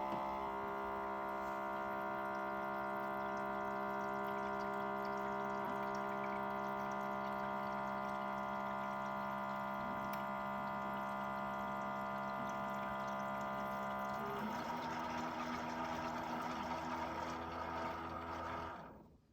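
Keurig K-Mini Plus single-cup coffee maker brewing: a steady electric pump hum that turns rougher and noisier, with a water-like rush, about fourteen seconds in, then dies away near the end.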